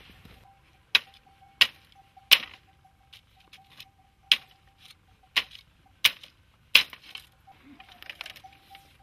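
Sticks being struck: seven sharp knocks, about half a second to a second apart, ending about seven seconds in. A faint steady high tone runs beneath.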